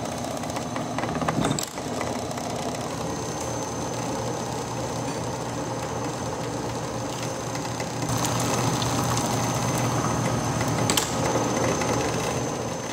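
Lyson Mini Line uncapping machine running steadily, its knife drive and frame chain working as honey frames pass through and the wax cappings are cut off. A sharp click comes about a second and a half in and another near eleven seconds, and the running grows a little louder about eight seconds in.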